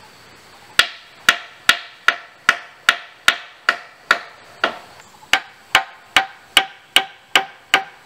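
Hammer striking nails into wooden floorboards, a steady run of sharp ringing blows about two and a half a second, with a short pause about halfway through.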